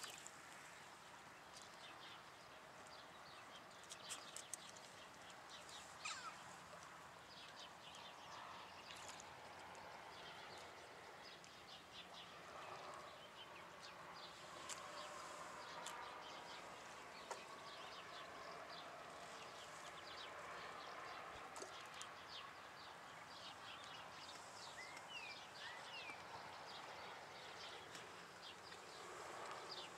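Near silence: faint outdoor background with scattered small ticks and a couple of brief chirps late on.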